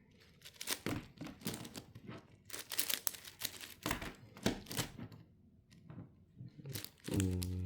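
Plastic layers of a 10x10 Rubik's cube being turned by hand: a run of quick, irregular clicks and clacks, with a short pause about two-thirds of the way through.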